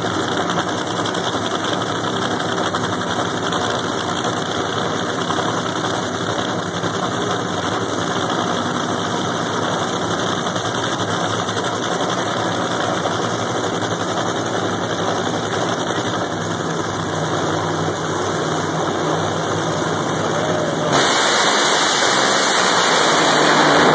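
Funny cars' supercharged nitro V8 engines idling, a loud, steady, lumpy rumble. About 21 seconds in the sound jumps suddenly louder and harsher.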